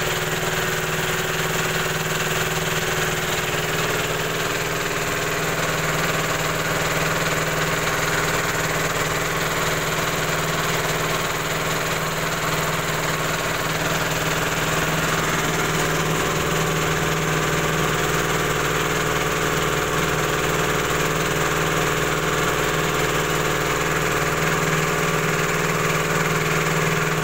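Vertical flat-die pellet mill (D26 with a 4 mm die) running steadily under load, pressing out feed pellets, with a constant pitched machine hum.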